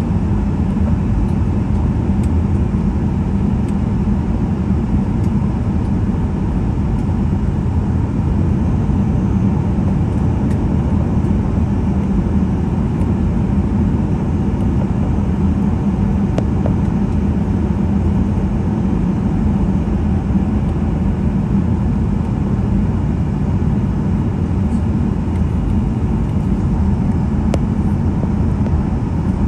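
Cabin noise of a Boeing 737-800 taxiing, heard from a seat by the wing: a steady low rumble from its CFM56-7B engines at idle and its wheels rolling over the taxiway.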